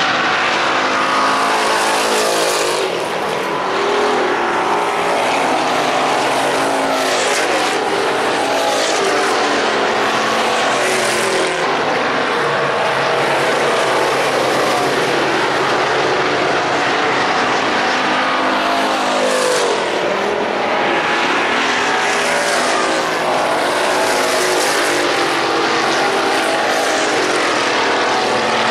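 Several dirt-track stock car engines running laps around an oval, their pitch rising and falling as the cars pass and move around the track.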